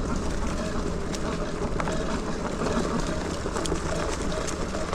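Electric bike rolling along a dirt trail: tyres running over dirt with scattered small ticks of grit and stones, under a steady low wind rumble on the microphone.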